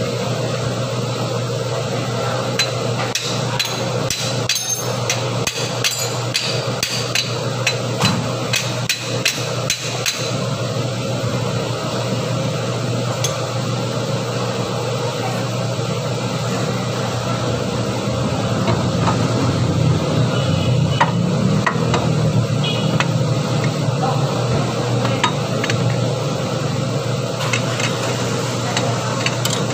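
Hammer strikes, many in quick succession from about three to ten seconds in and a few more scattered later, over a steady low mechanical hum.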